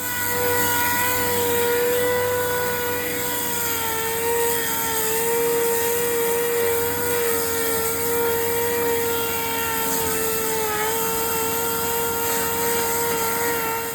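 Electric sander running steadily with a high whine over a hiss as it works the edges of a steel wheel rim, the pitch wavering and dipping briefly about eleven seconds in as it is pressed against the metal.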